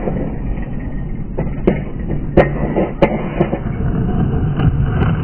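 Skatepark noise: a steady low rumble with about half a dozen sharp clacks scattered through it at uneven intervals.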